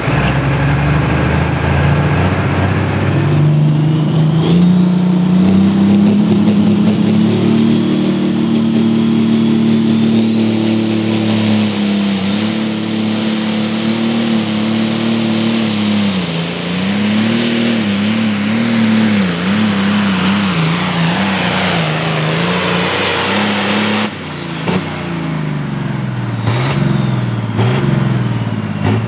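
Turbocharged diesel engine of a John Deere Limited Pro Stock pulling tractor under full load: it climbs in pitch as the tractor launches, holds, then bobs up and down as the engine loads and unloads late in the pull, with a high turbo whine over it. About five seconds from the end it gives way to another pulling tractor's engine revving up and down.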